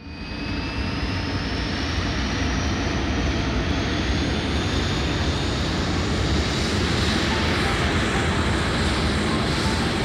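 Jet aircraft sound effect: steady jet engine noise with a high whine that rises slowly in pitch, starting suddenly.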